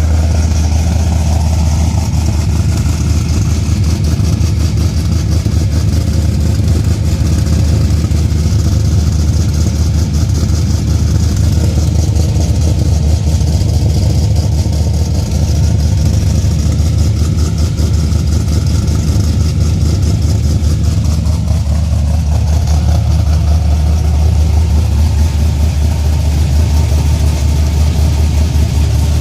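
2004 Cadillac CTS-V's 5.7-litre LS6 V8 idling steadily.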